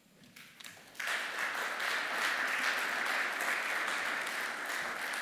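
Audience applauding: a few scattered claps, then about a second in the clapping swells abruptly into full, steady applause.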